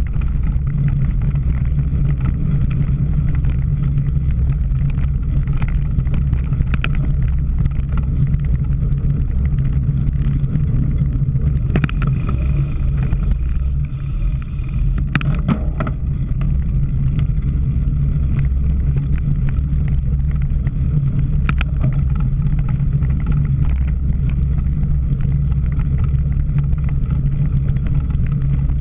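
Steady low rumble of wind buffeting a camera microphone on a moving bicycle, with a few sharp knocks from the bike over rough ground.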